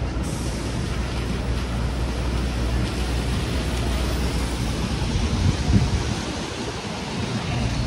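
Hurricane wind and rain rushing over the microphone in a steady, even noise. A low hum sits under it for the first few seconds, and a brief low thump comes about three quarters of the way through.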